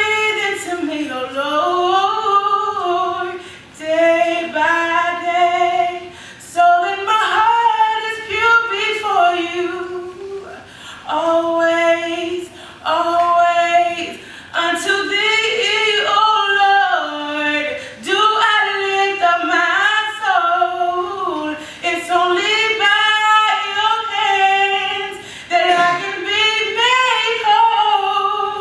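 A woman singing a gospel song solo into a microphone, unaccompanied, in phrases of long held notes that slide up and down in pitch.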